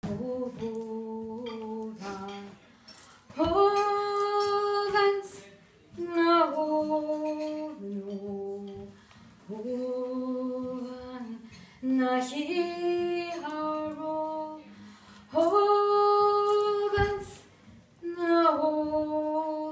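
A woman singing a folk song unaccompanied, in held notes grouped into phrases of a few seconds with short breaks between them.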